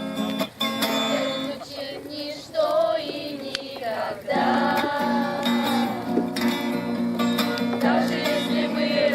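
Acoustic guitar played with singing.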